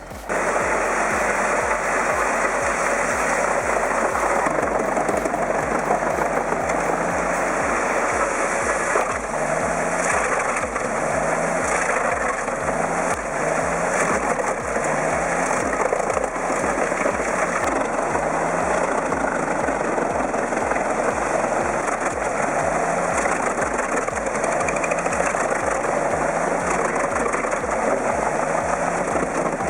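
Large 8x8 truck-mounted wood chipper running steadily, its engine and chipping mechanism making a loud, continuous noise.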